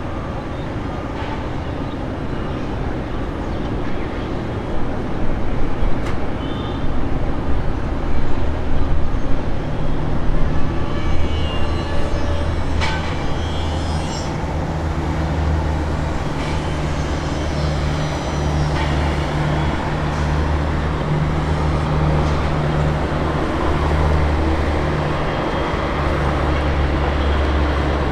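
Heavy vehicle and engine noise: a steady low engine drone over general traffic noise, louder and rougher in the first third.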